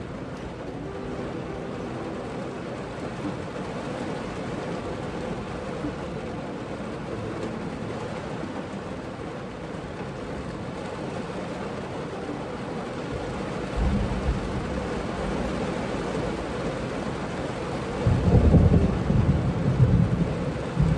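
Heavy rain pelting a car's roof and windows, heard from inside the closed car. Thunder rumbles low about two-thirds of the way through, and a louder, longer peal of thunder comes near the end.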